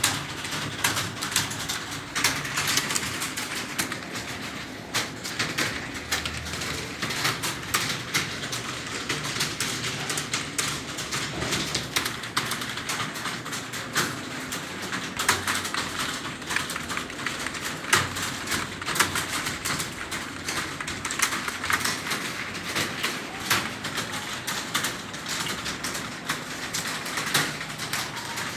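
Computer keyboard being typed on fast and unevenly, a steady stream of key clicks.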